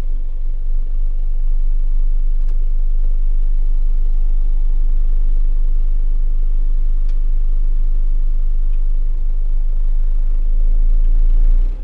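John Deere 6320 tractor's four-cylinder diesel engine running steadily, a low hum that grows a little louder about ten seconds in and then drops off suddenly.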